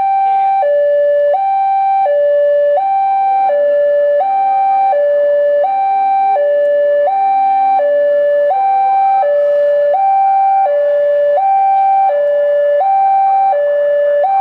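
Railway level-crossing warning alarm sounding: a loud electronic two-tone signal that swaps steadily between a lower and a higher pitch about every three quarters of a second.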